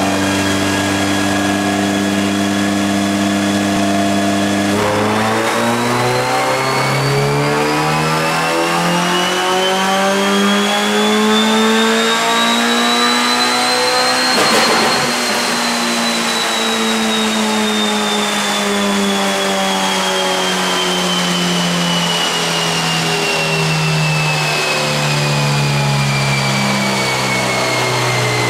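Honda B20VTEC four-cylinder engine running on a chassis dyno: held at steady revs for about five seconds, then pulling with its pitch rising steadily for about ten seconds, then coming off the throttle and the revs falling slowly in a long deceleration.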